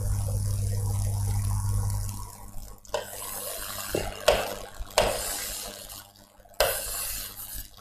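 Chalk scraping across a chalkboard in about four quick strokes as long arrows are drawn. Before that, a low steady hum runs for about the first two seconds and then stops.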